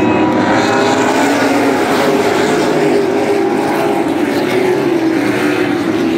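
A pack of ASA late model stock cars racing past, their V8 engines making a loud, continuous drone whose pitch wavers as the cars go by.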